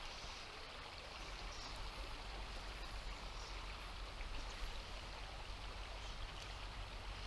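Shallow river water flowing steadily over a riffle, a low, even rush.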